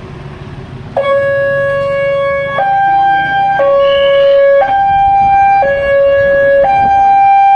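Railway level crossing's new electronic warning siren, which warns that a train is approaching. It starts about a second in and alternates between a lower and a higher tone, each held for about a second.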